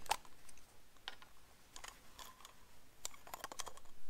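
Scattered light clicks and taps of small plastic tail-light bulb parts being handled.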